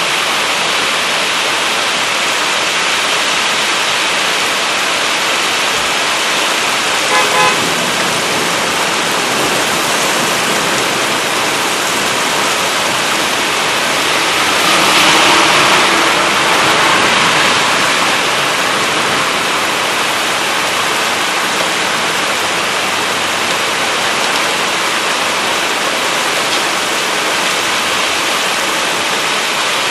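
Heavy rain pouring steadily, with gusty wind. About seven seconds in, a brief double toot of a car horn cuts through, and about halfway through the rush swells louder for a few seconds.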